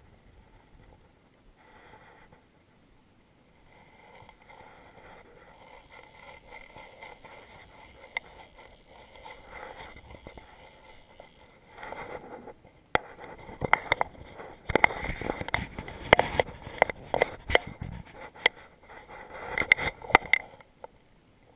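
A hooked salmon splashing and thrashing in the shallows as it is drawn in to the bank on a fly rod. It comes as a quick, irregular run of sharp splashes and knocks in the second half, after a quieter stretch of water noise.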